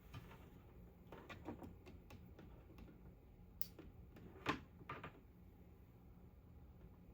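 Faint handling noises: scattered light clicks and rustles, the loudest about four and a half seconds in, over a faint steady low hum.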